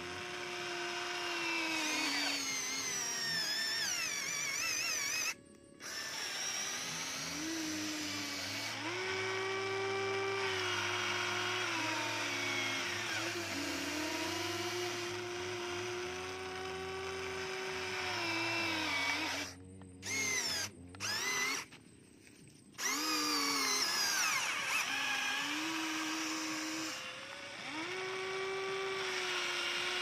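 Electric motors of a Huina radio-controlled model excavator whining as the boom, arm and bucket dig. The pitch rises and falls with each movement, and the whine stops briefly a few times, with a longer break a little past the middle.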